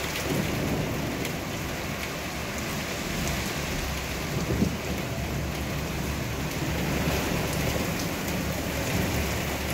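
Heavy rain pouring steadily, with a low rumble of thunder that sets in just after the start and swells briefly about halfway through.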